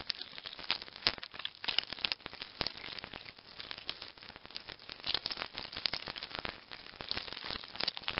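Stag beetle sound effect: dense, irregular crackling with many sharp clicks.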